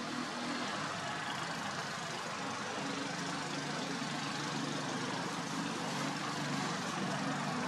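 A motor running steadily, a low hum under constant broad noise, the hum a little stronger from about three seconds in.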